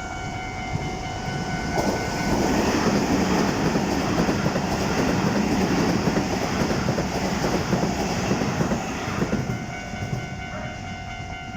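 A Keisei 3700 series commuter train passes over a level crossing; it is loud from about two seconds in until near the end. The crossing's warning bell rings at the start and again near the end, drowned out while the train goes by.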